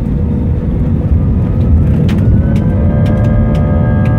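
Airbus A320 jet engines heard from inside the cabin over a deep, steady rumble. About two seconds in, a whine of several tones rises in pitch and then holds steady as the engines spool up for takeoff, with scattered sharp ticks on top.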